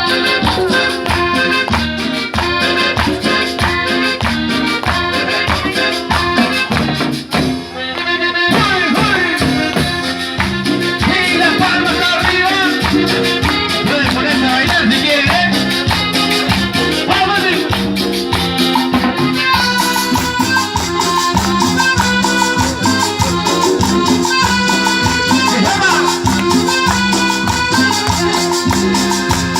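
Cumbia-style Latin dance music with a steady beat and shaker percussion. It breaks off briefly about eight seconds in, then picks up again.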